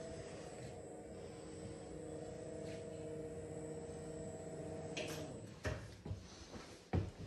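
Stiltz Duo Vista home lift's drive humming steadily as the car travels down to the ground floor. The hum stops about five and a half seconds in, and a few short knocks follow.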